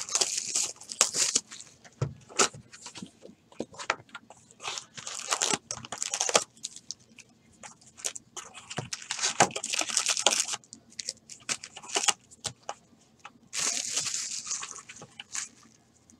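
Foil wrappers of NBA Hoops basketball card packs crinkling and tearing as they are ripped open by hand, in uneven bursts with short pauses; the packs are stubborn and don't want to open.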